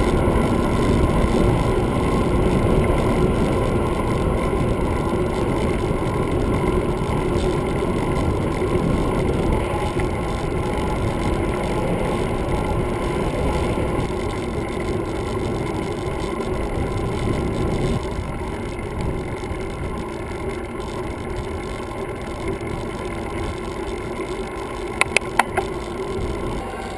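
Wind rushing over an action camera's microphone as a bicycle rolls along an asphalt road, easing a little about two-thirds of the way through. A few quick sharp clicks near the end.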